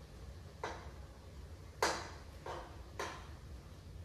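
Cooking utensil scraping and knocking against a pot while stirring and breaking up ground meat as it browns: four separate strokes, the loudest about two seconds in.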